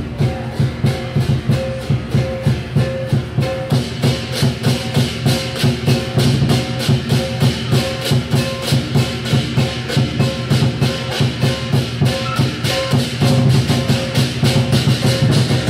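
Lion dance percussion: a large Chinese lion drum beating a steady driving rhythm of about three to four strokes a second, with clashing cymbals and a gong. The cymbal crashes grow louder about four seconds in.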